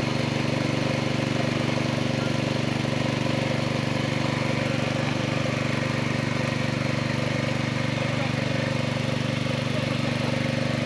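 An engine running steadily at one unchanging speed, a constant drone with no rise or fall.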